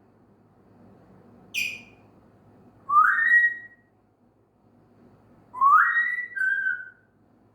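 African grey parrot whistling: a short high chirp, then two rising whistles, the second one stepping down to a lower held note at its end.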